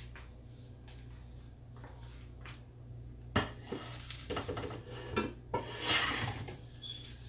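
Kitchen utensils and dishes clattering: light knocks, clinks and scrapes of a spoon and bowl, with one sharper knock about three and a half seconds in.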